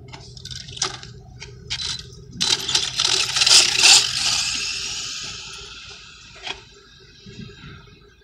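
4-Tec RC car on a speed run: a few short throttle blips, then about two seconds in it launches with a loud high-pitched motor whine and tyre hiss that fades steadily as the car speeds away.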